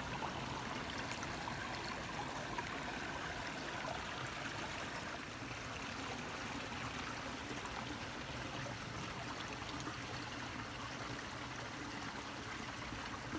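Creek water running and trickling over rocks, a steady rush.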